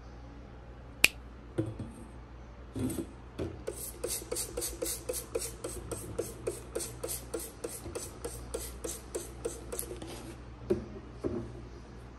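A red shaker worked by hand over a small steel saucepan, sprinkling white granules in with a quick, even rattle-hiss of about three or four shakes a second. A single sharp click comes about a second in, and a couple of louder knocks come near the end.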